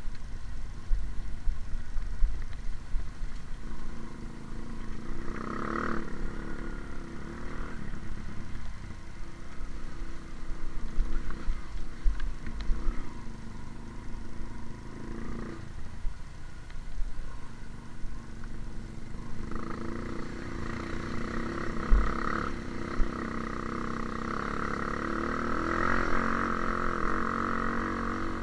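Trail motorcycle engine running steadily, getting louder and brighter in the last third, with low rumbling thumps mixed in.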